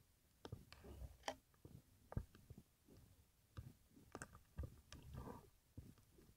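Faint, irregular clicks and knocks heard underwater, with a couple of brief soft rushing sounds.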